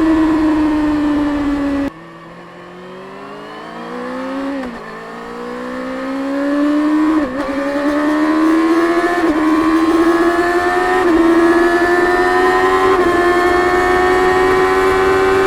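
Stock-exhaust 2024 Kawasaki Ninja ZX-6R's 636 cc inline-four under way: the engine note falls, then the throttle shuts and the sound drops off sharply about two seconds in. It then pulls back up, the pitch rising with a short dip roughly every two seconds as it changes up through the gears.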